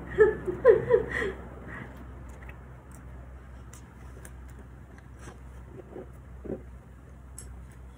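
A woman's brief laugh, then quiet eating: faint, scattered clicks of chewing and chopsticks over a steady low hum.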